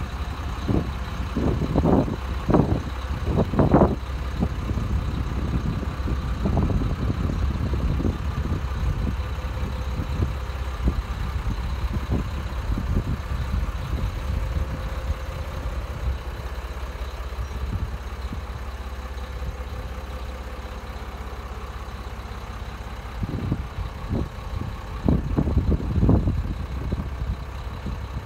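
Caterpillar 966K wheel loader's diesel engine idling steadily, with a few louder irregular bursts in the first four seconds and again near the end.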